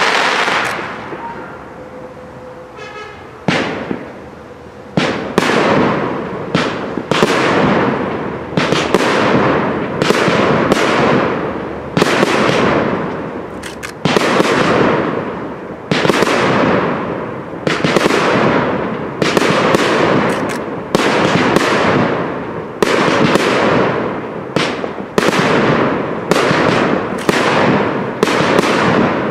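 Aerial firework shells bursting in a rapid sequence, each loud bang fading away quickly. After a short lull in the first few seconds, the bangs come about one or two a second.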